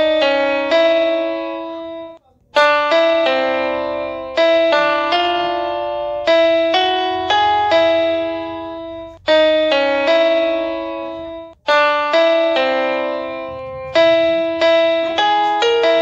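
Background piano music: a melody of struck notes and chords, each fading after it is played, broken by two short pauses.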